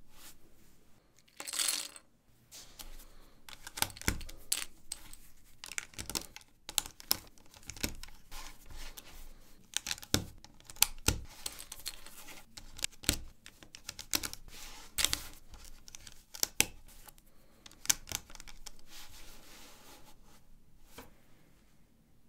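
LEGO 1×4 plates clicking and clattering as they are handled and pressed together, a string of irregular sharp snaps of varying loudness. A short rustling clatter comes about two seconds in.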